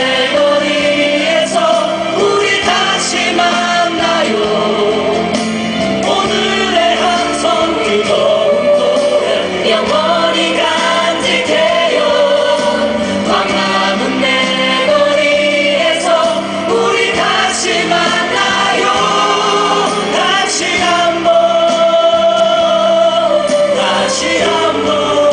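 Several voices singing a Korean protest song together over a live band, with regular percussion hits under the held sung notes.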